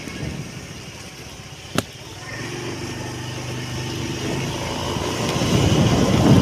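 A motor vehicle's engine humming steadily as it passes in the street, with a noise that swells toward the end. There is a single sharp click a little under two seconds in.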